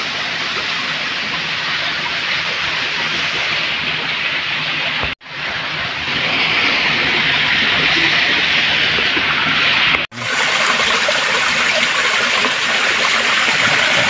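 Steady rush of water from a small waterfall pouring over rock. It cuts out abruptly for an instant twice, about five and ten seconds in.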